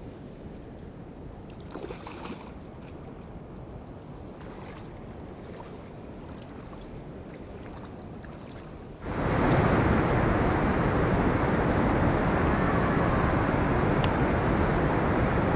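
Shallow river water running over a stony bed, with a few faint ticks about two seconds in. About nine seconds in it jumps to a much louder, steady rush of water heard from right at the water's surface.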